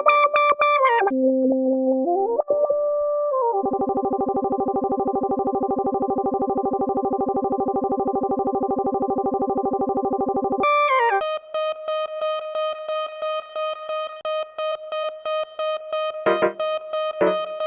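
Electronic dubstep music made on the Launchpad app for iOS: synth notes gliding up and down in pitch, then a held synth chord pulsing rapidly for about seven seconds, then a high synth note stuttering several times a second with short low hits near the end.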